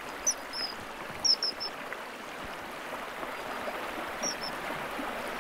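Shallow stream running over stones, a steady rushing of water, with short high bird chirps in small groups: one near the start, a quick run of three about a second in, and two more about four seconds in.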